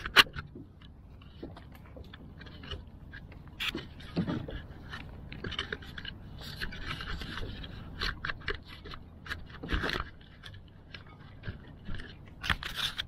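Handling noises while a fish is unhooked beside a plastic kayak: scattered clicks, knocks and scrapes of hands and fishing pliers on the hull and fishing gear, with a sharp knock right at the start.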